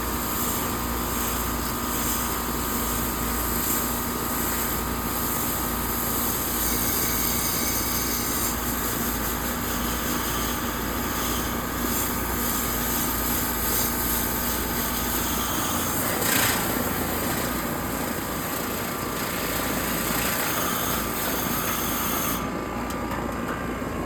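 Outdoor air-conditioner condenser running steadily, its fan and compressor humming, while water from a hose hisses onto the unit's coils to cool them. The spray hiss cuts off about two seconds before the end, leaving the unit's hum.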